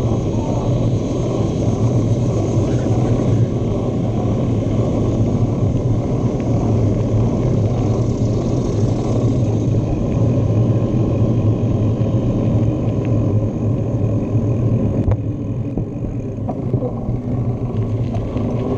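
Steady wind rumble on a handlebar-mounted GoPro's microphone, with tyre noise from a bicycle rolling along a paved street.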